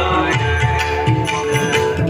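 Indian-style music: regular low drum strokes under held melodic notes.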